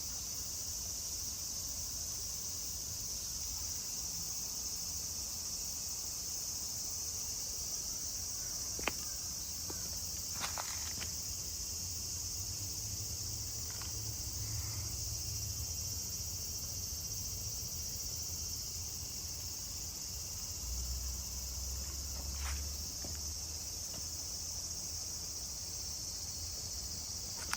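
Steady high-pitched insect chorus, with a few faint clicks and a low rumble underneath.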